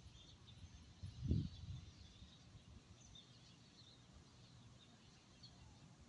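Faint outdoor ambience with a short gust of wind buffeting the microphone about a second in, and faint high bird chirps in the background.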